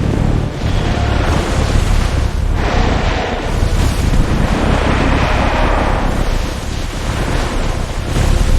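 A loud, continuous rushing rumble with a heavy low end and no clear pitch, of the kind used as sound effects for a battle scene.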